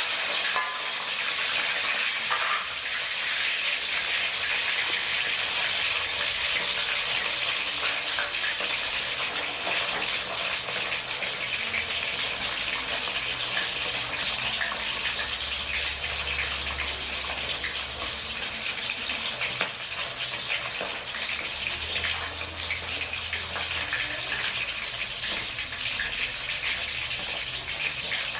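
A whole fish frying in shallow oil in a wok: a steady sizzle with constant fine crackling and spitting of the hot oil.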